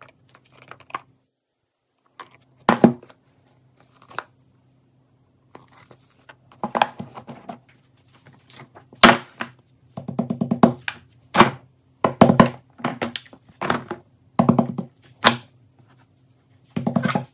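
Fidget toys being handled, with quick runs of pops from silicone pop-it bubbles pressed one after another, plus scattered taps and clicks. A low steady hum lies underneath.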